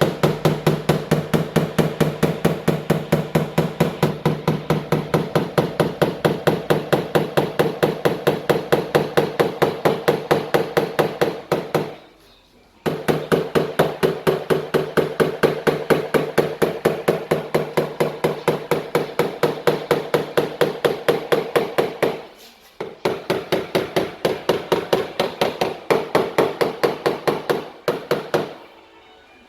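Rapid, even tapping of a hammer on a flat knockdown tool against a car door's sheet metal, about four ringing taps a second with three short breaks. The crease in the dent is being knocked down to relax the metal while a glue puller holds it under tension.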